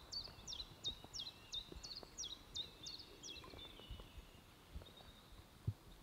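A small songbird singing a run of about a dozen quick, high notes, each slurred downward, about three a second, stopping a little past halfway. Faint low knocks and water sounds lie underneath.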